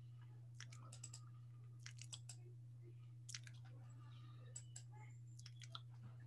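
Faint, scattered computer mouse clicks in small groups over a steady low hum.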